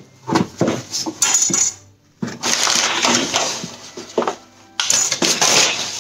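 Tissue wrapping paper crinkling and crumpling as it is handled and pulled out of a cardboard box, with a few short knocks of hands against the cardboard in the first two seconds. Two long stretches of rustling follow, about two seconds in and again near the end.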